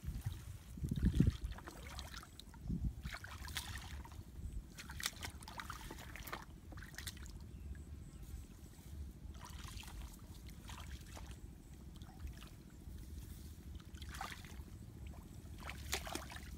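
Hands splashing and sloshing in shallow muddy paddy water while groping for fish, in scattered short splashes over a steady low rumble, with a louder low thump about a second in.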